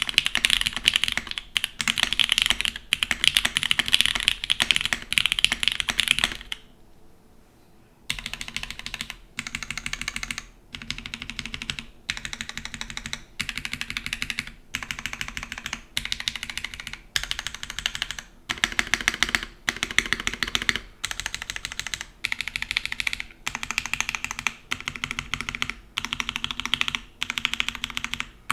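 Typing on a mechanical keyboard with broken-in Cherry MX Black linear switches, a nylon plate and GMK keycaps. Fast, continuous keystrokes for about six seconds, a pause of a second or two, then typing in short bursts about a second long separated by brief gaps.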